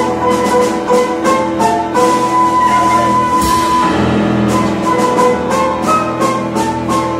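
Small theatre pit orchestra playing an instrumental passage: a melody of held notes stepping up and down over a sustained low line, with drum strokes throughout.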